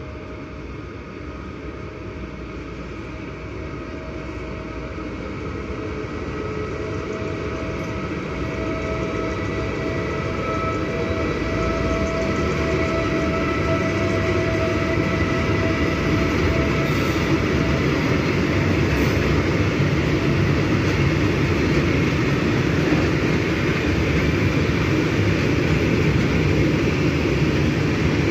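Train approaching, its rumble growing steadily louder, with a few steady whining tones that fade out about two-thirds of the way through.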